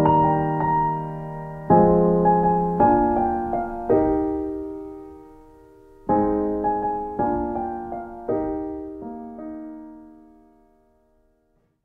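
Background piano music: slow chords struck one after another, each ringing and fading, dying away to silence near the end.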